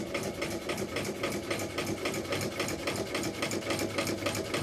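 A shoe repairer's sewing machine running steadily, the needle stitching at a fast, even beat.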